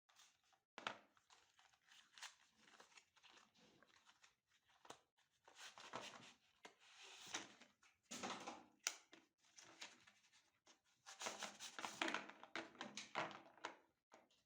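Plastic candy wrappers crinkling and tearing as chocolates are unwrapped by hand, in irregular crackly bursts with sharp clicks.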